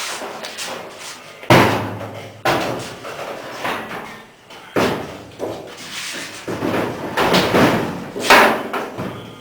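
Steel door of a 1963 Chevy C10 pickup being hung and fitted: about five loud metal clunks and bangs, with ringing after them, as the door is knocked into place and shut against the cab.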